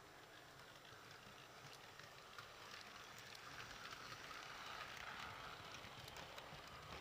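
Model steam locomotive and coaches running on a model railway, a faint rattle of wheels on track with scattered clicks, growing louder as the train passes closest, about four to five seconds in.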